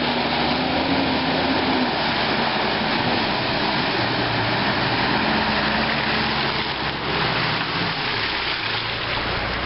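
Engine of a four-wheel-drive ute running as it drives through a muddy water crossing and out onto the track, with the rushing splash of water from its tyres. The engine pitch rises a little about a second in.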